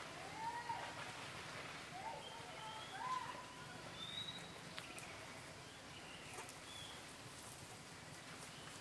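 Faint outdoor ambience with birds calling: a few short whistled notes that rise and fall in the first few seconds, then thin high chirps scattered through the rest, with a few faint ticks.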